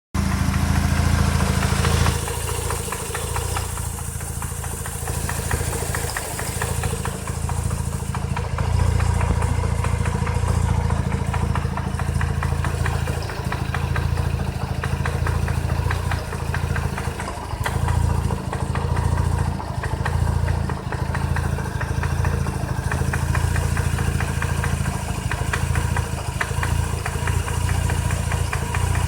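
Mazda RX-8's rotary engine running with a rapid, steady knocking, which swells louder a few times as the throttle is opened. The owner reports that the knock gets worse with gas.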